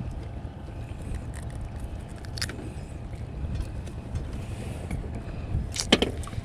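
Steady low rumble of wind and water around a small boat at sea, with a couple of sharp clicks, about two and a half and six seconds in.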